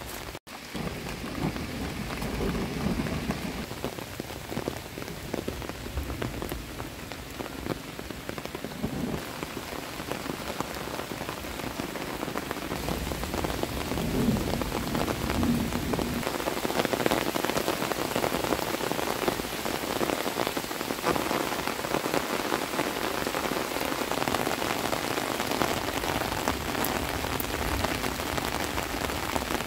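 Steady rain falling on leaves and wet, muddy ground, a dense patter of drops that grows a little heavier about halfway through.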